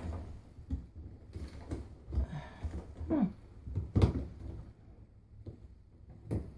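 Scattered clicks and knocks from a Frigidaire front-loading washer's replacement door latch being worked into place, the loudest about four seconds in. A brief low vocal sound comes just after three seconds.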